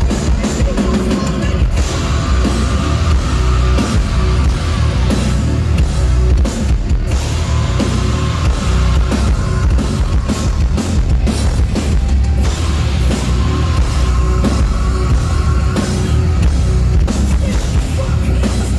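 A heavy metal band playing live at full volume: drums and distorted guitars, with a held melodic line over a heavy low end.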